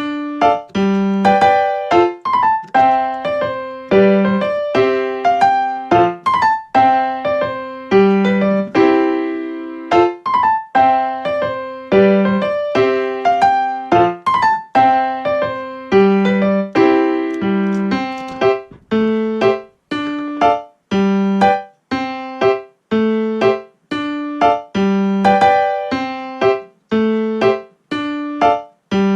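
Background music played on piano or electric piano, a bright melody of repeated notes with a steady beat and a bass line.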